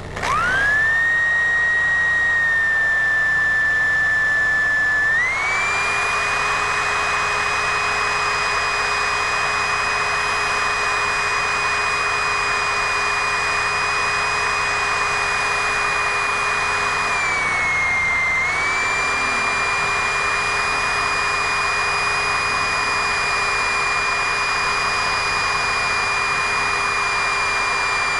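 Corded electric drill spinning up and running steadily as it bores out a screw hole in an RV screen-door crossbar. The motor whine climbs a step in pitch about five seconds in and sags briefly about two-thirds of the way through before settling again.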